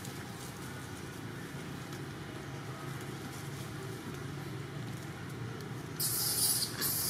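Steady low rumble of distant vehicle traffic. About six seconds in, a louder rustling hiss joins it.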